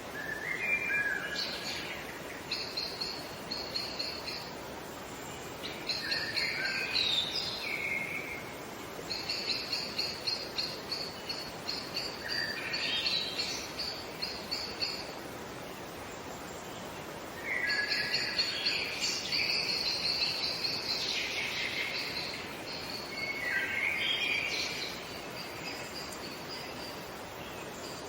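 Songbirds singing: a string of song phrases a few seconds long, each made of quick repeated high notes and short sliding notes, over a steady background hiss.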